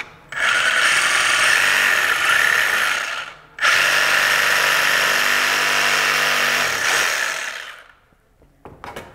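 Reciprocating saw cutting through a plastic standoff, running in two bursts of about three seconds each with a brief stop between them, then cutting off.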